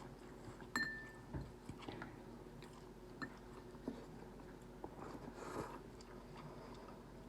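People eating spicy instant noodles and chicken, faint chewing and biting with small scattered clicks; a sharp click with a brief ring a little under a second in, then a soft low thump.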